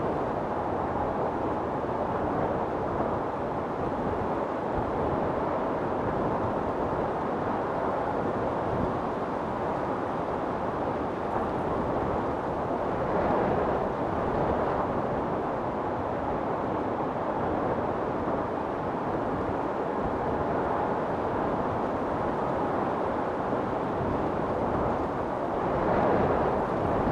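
Wind storm blowing as a steady, dense rushing, with gusts swelling about halfway through and again near the end.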